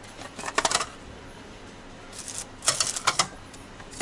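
Plastic plates clicking and clattering against each other in several short bursts as a plate is pulled from a stack.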